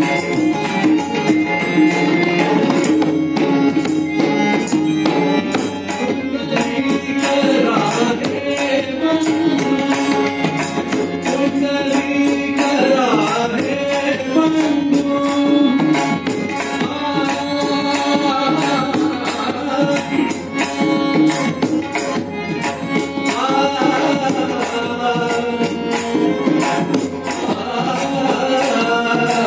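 Male voice singing a Marathi devotional abhang, accompanied by a harmonium's sustained chords and tabla drumming.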